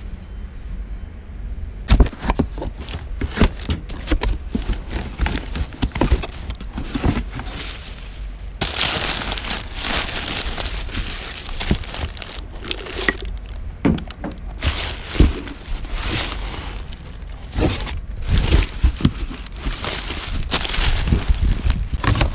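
Rummaging through cardboard boxes: items knocking and clattering against each other, cardboard flaps handled, and crumpled packing paper rustling and crinkling, densest through the middle.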